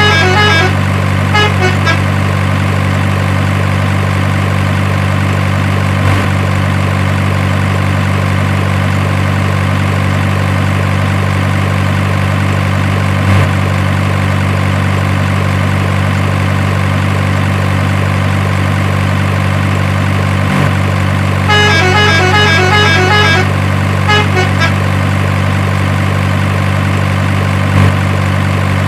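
Truck engine sound effect running steadily, with a quick run of horn toots near the start and again about three quarters of the way through, then a shorter run soon after.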